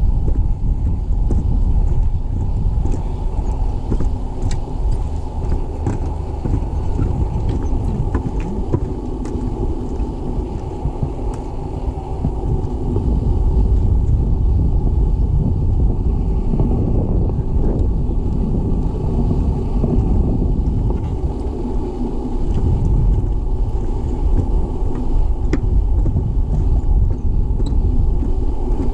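Wind buffeting the camera's microphone: a steady, rough low rumble.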